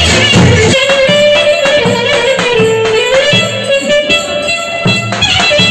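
Live Turkish folk dance music: an instrumental melody with held notes sliding between pitches, over the steady beat of a davul bass drum.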